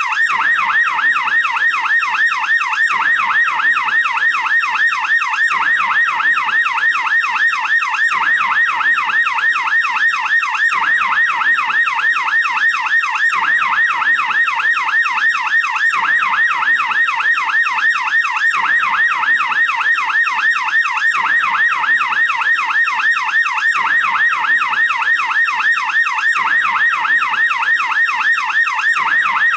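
American police car siren on the yelp setting: a fast rising-and-falling wail that repeats rapidly and evenly without a break.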